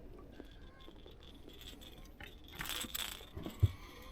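Quiet handling noise: a brief rustling scrape about two and a half seconds in, followed by a couple of soft low knocks.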